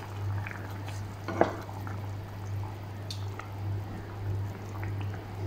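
Curry sauce with chicken balls simmering in a pan while a wooden spoon stirs it, with scattered small clicks and one sharp knock about a second and a half in. A steady low hum runs underneath.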